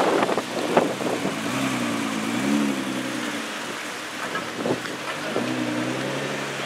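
Heavily tuned Nissan GT-R's twin-turbo V6 running at low revs as the car pulls away slowly, a low wavering engine note. There are a few sharp pops in the first second and again about halfway through.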